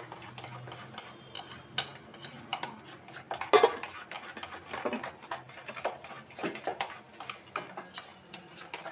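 A spoon stirring moong dal batter in its container, with irregular clinks and scrapes against the side, the loudest about three and a half seconds in.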